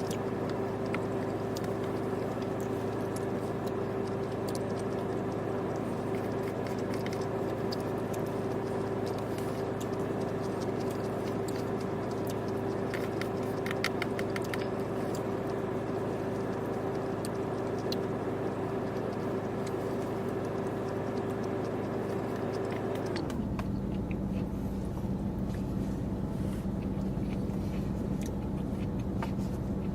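Steady mechanical hum, such as a vehicle's running motor, that drops to a lower, softer pitch about 23 seconds in, with a few faint clicks midway.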